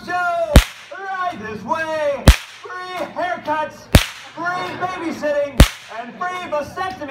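A long whip cracked four times, sharp loud cracks spaced evenly about every second and a half to two seconds.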